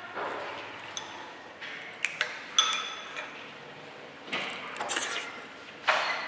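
Cutlery clinking against dishes: a handful of sharp, irregular clinks, some with a short ring, and a few longer clattering scrapes after the middle.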